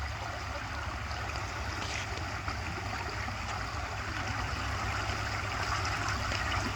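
Creek water running steadily, an even rushing and trickling.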